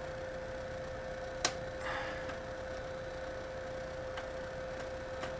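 One sharp click about one and a half seconds in and a few faint ticks later, as a hand tool works against a small laser module's housing to seat it in its mount. A steady high-pitched hum sounds underneath.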